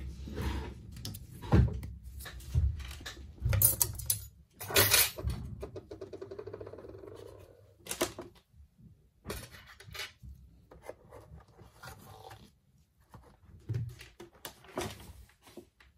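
Small tools and phone parts handled on a workbench during a smartphone screen repair: a run of sharp clicks and knocks, with a brief buzz of fast ticks for about two seconds a little before the middle.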